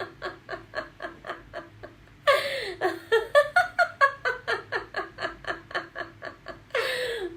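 A woman laughing deliberately in quick, even ha-ha-ha pulses, about four a second, as a laughter yoga exercise. The laughter breaks off for a loud breath-in about two seconds in and another near the end.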